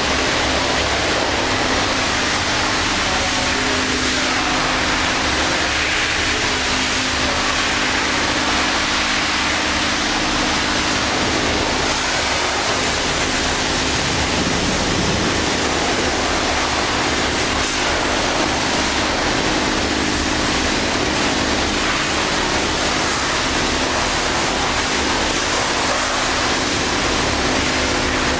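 Pressure-washer spray hissing steadily against a small excavator, with a steady low hum from the pump underneath.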